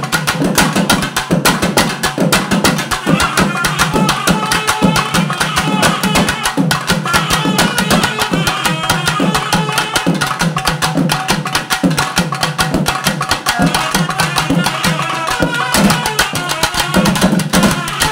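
A naiyandi melam folk ensemble playing: fast, loud drumming on stick-beaten barrel drums, with a shrill nadaswaram-type reed pipe carrying a melody over the drums.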